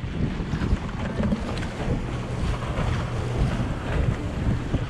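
Wind buffeting the camera microphone: a low, uneven rumble.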